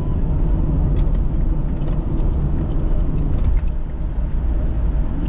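Steady low road and engine rumble of a moving car heard from inside the cabin, with faint scattered light clicks.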